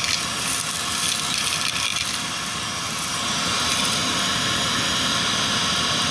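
Vacuum cleaner running steadily with a loud rush of airflow. Its sound brightens a little about three seconds in.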